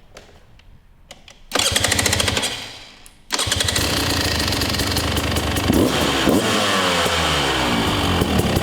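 Husqvarna TE 300i two-stroke single-cylinder dirt bike engine being started. It fires for about a second, fades out, then catches a little over three seconds in and keeps running. It is revved up and down a couple of times about halfway through.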